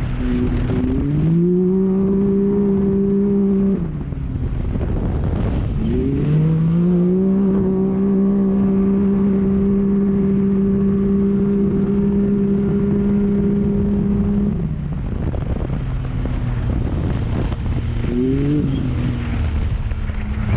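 Off-road race vehicle's engine at racing speed. The revs climb about a second in and hold at one steady pitch, drop off around four seconds in, then climb again and hold steady for about eight seconds before falling away. There is a short burst of revs near the end, over a constant rumble of rough ground.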